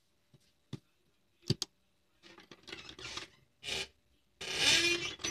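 Cloth rustling and rubbing as cotton fabric is smoothed and shifted by hand under a sewing machine's presser foot, with a few sharp clicks about a second and a half in and a louder stretch of rustling near the end.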